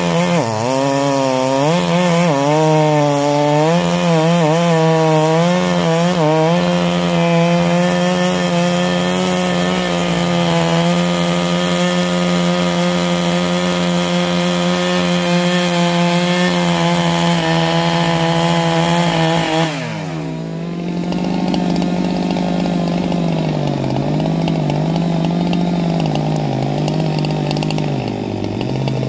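Husqvarna 395 clone chainsaw, a big two-stroke, running flat out through a log. Its pitch wavers in the cut for the first several seconds, then holds steady. About twenty seconds in the revs fall away and the saw runs slower and unsteadily with the chain out of the cut, opening up again right at the end.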